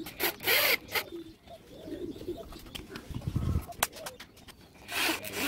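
Power drill driving screws into wood in short bursts, with a few sharp clicks between them. A bird coos softly in the background.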